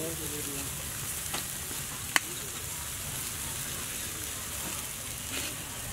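Skewered chunks of meat grilling over a fire, sizzling and crackling steadily, with a sharp pop about two seconds in and a few fainter pops.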